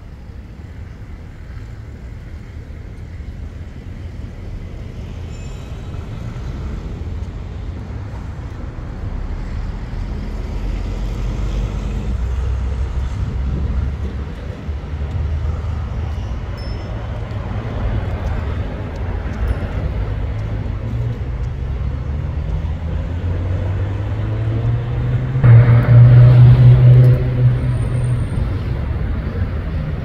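City street traffic, a steady low rumble that slowly grows louder. Near the end a vehicle close by accelerates, its engine rising in pitch, and becomes the loudest sound for a couple of seconds before it fades back into the traffic.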